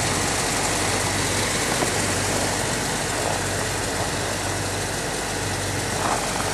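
Jeep YJ engine idling steadily, warming up after a cold start at about minus 14 degrees.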